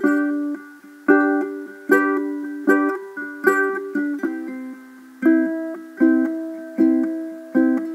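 Background music: a lone plucked string instrument with no voice or bass. It plays chords a little more than once a second, each one ringing and fading before the next.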